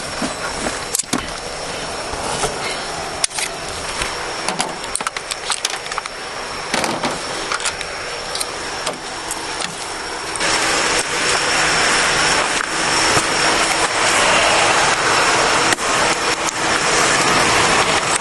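Roadside traffic noise with scattered clicks and rattles, turning into a louder, steady rush about ten seconds in.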